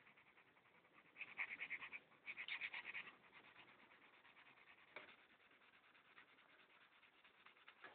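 Pencil shading on paper: two short bursts of quick back-and-forth scratchy strokes, about nine a second, the first starting about a second in and the second just after it. A faint single tick follows a few seconds later.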